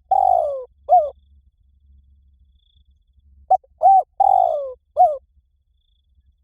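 Spotted dove cooing in phrases: the tail of one phrase, a long falling coo and a short closing note, then about three and a half seconds in a full phrase of short coos, a long falling coo and a short final note.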